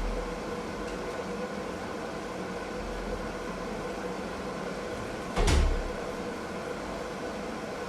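Samsung WF-R1062 front-loading washing machine running with a steady mechanical hum and a few faint steady tones, with one short, deep thud about five and a half seconds in.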